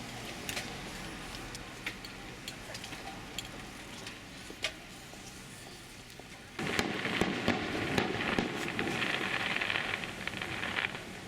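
Fireworks: scattered small pops, then about six and a half seconds in a dense crackle of many tiny bursts starts suddenly and runs for about four seconds before dying away.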